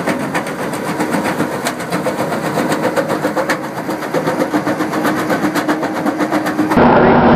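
Hydraulic bucket attachment at work: the engine of a Kubota compact track loader runs under load with the rapid, steady clatter of its MB bucket processing soil and stones. About three and a half seconds in, the sound shifts to an excavator-mounted screening bucket, and near the end a louder engine cuts in.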